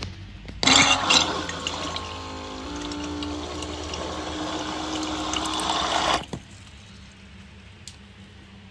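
Water from a tap running into a humidifier's water tank. It starts suddenly, runs for about five and a half seconds with its pitch rising a little, and cuts off abruptly.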